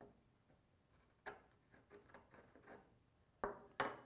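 Faint scratching of a wooden marking gauge's pin scoring a line across the grain of a workpiece, with a few light wooden clicks and two sharper knocks near the end.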